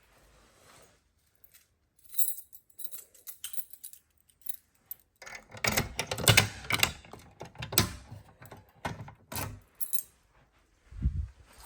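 Irregular clicks, rattles and light knocks of small objects being handled, sparse at first and busier from about halfway in, with a low thump near the end.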